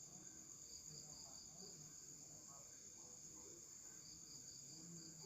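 Faint, steady high-pitched insect trill, with a pulsing chirp in places.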